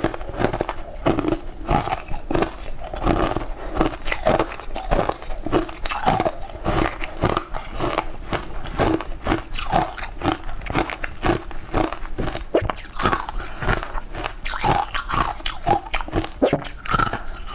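A person chewing a mouthful of crunchy, crumbly food close to a clip-on microphone: an unbroken run of crisp crunches, several a second.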